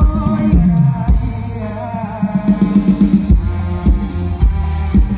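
Live band music through a stage PA: drum kit and bass keeping a steady beat under a male singer's voice.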